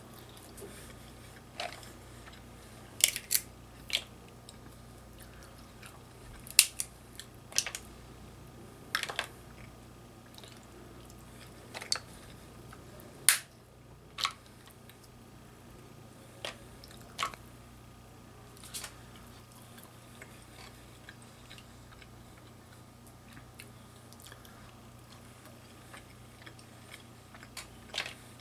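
Close-up eating sounds of a person working through mussels and snow crab legs: chewing, broken by about a dozen sharp, irregular clicks and cracks from the shells, with long quiet gaps between.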